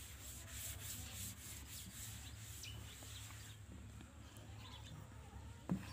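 Cloth wiping chalk off a blackboard: a faint, quick back-and-forth rubbing hiss that stops a little past halfway, with a light knock near the end.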